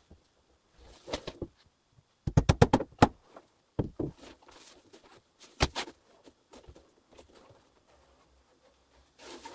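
Knocks and thuds on the attic's wooden floorboards and joists as someone moves and handles things. A quick run of about eight knocks comes between two and three seconds in, then a few single knocks.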